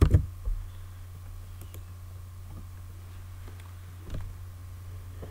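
Computer mouse clicks, a few faint scattered ones and a firmer one a little after four seconds, over a steady low hum; a louder thump comes right at the start.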